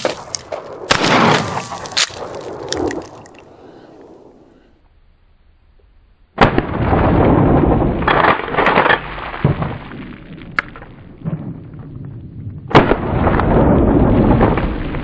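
A 12-gauge pump-action shotgun firing once about a second in, its report ringing out over a few seconds. Later there are two sudden loud, noisy stretches of shot and impact sound that seem to be recorded close to the target, where water jugs are being hit with buckshot and a slug.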